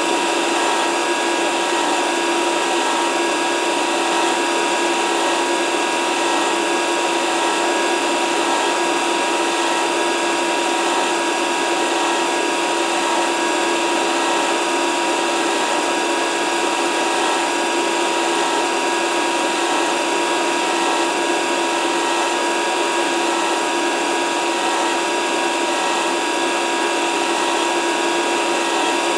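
Grinder running steadily with a constant whine while grinding a part in a spin jig, with a faint high tick recurring about once a second.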